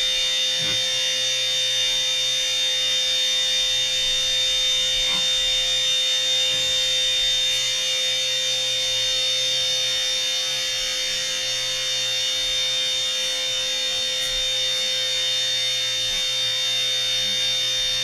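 Bee vacuum running steadily as its hose sucks a honeybee swarm off a house eave: a constant motor whine with a high steady tone over rushing air.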